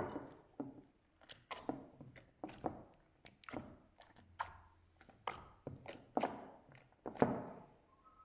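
Slime being squeezed and pressed by hand, making a run of sharp wet clicks and pops, about one to two a second at an uneven pace. The loudest pops come at the very start and about seven seconds in.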